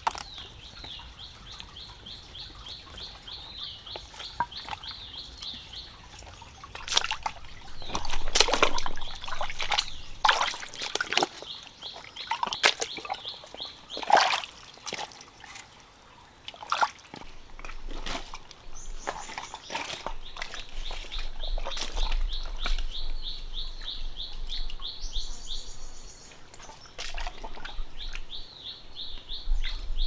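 Water splashing and sloshing in a shallow stream, with a run of sharp, loud splashes in the middle stretch, as hands and rubber boots work in the water. Behind it runs a steady, rapidly pulsing high trill that drops out while the splashing is loudest.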